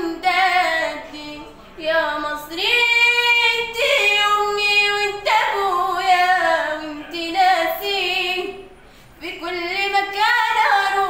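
A girl singing solo in Arabic style, unaccompanied, with long held notes that waver and turn in ornaments; she breaks off briefly about nine seconds in, then comes back in.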